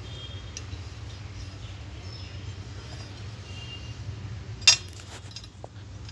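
A single sharp metallic clink about three-quarters of the way in, followed by a couple of lighter clicks, as an aluminium automatic-transmission valve body and its loose metal parts are handled, over a steady low hum.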